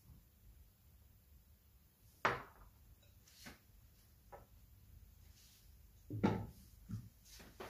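A serving bowl set down on a glass cooktop with one sharp knock, a few light ticks after it, then a glass lid set onto the cooking pot, with several knocks close together near the end.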